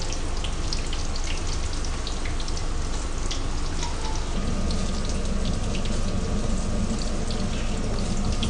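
Battered chicken pieces deep-frying in hot oil in a wok: a steady sizzle full of small crackles and pops.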